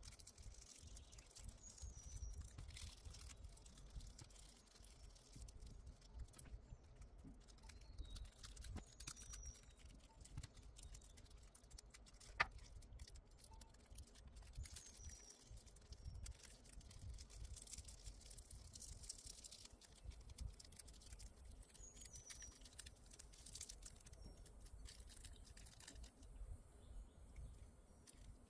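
Near silence: faint rustling and crinkling of thin nail transfer foil and gloved fingers rubbing it onto a nail tip, with one sharp click about twelve seconds in and a few faint, short high chirps.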